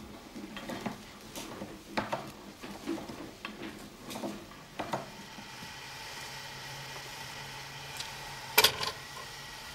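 Hand-cranked can-seaming machine clicking and clunking as its handle is turned and its rollers roll the lid onto a tin can. After about five seconds it gives way to a steady hiss from a pot of hot water, with a metallic clank near the end as a sealed can goes into the pot.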